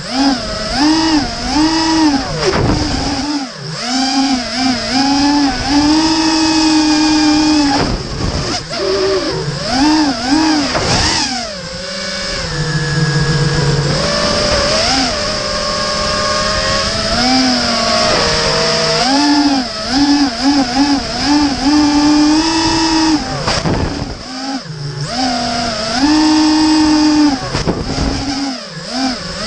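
Brushless motors and propellers of an FPV racing quadcopter, heard through its onboard camera, whining and swooping up and down in pitch with constant throttle changes, over a steady high-pitched whine.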